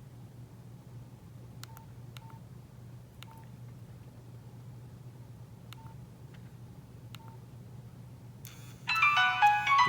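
Nokia 8600 Luna keypad: five short, soft key beeps as its buttons are pressed through the menus. About nine seconds in, the phone starts playing a loud polyphonic ringtone melody.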